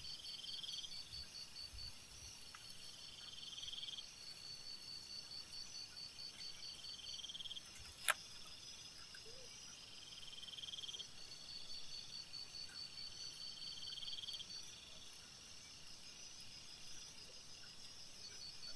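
Crickets and other night insects chirping: a high, fast-pulsing trill that drops out and resumes, and a lower buzzing phrase about a second long repeating every three seconds or so. One sharp click sounds about eight seconds in.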